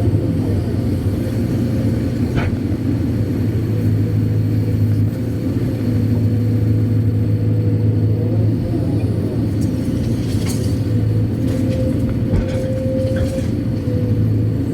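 Kobelco SK200-8 Super X excavator's diesel engine running steadily under working load, with a steady whine that wavers slightly in pitch. A few short clicks or knocks come once early and several times near the end.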